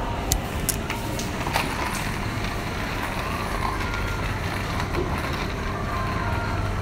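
Supermarket ambience: a steady background hum with a few sharp clicks and clatters in the first couple of seconds. The low hum grows a little louder near the end.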